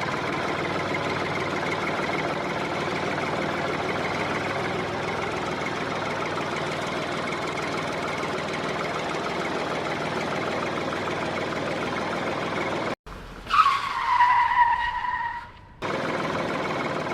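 Small engine running steadily. About thirteen seconds in it cuts out abruptly, and a loud whine falling in pitch lasts about two seconds before the steady running resumes.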